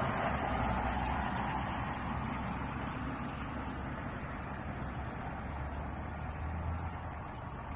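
A passing vehicle's steady rushing noise slowly fading away, with a low rumble underneath.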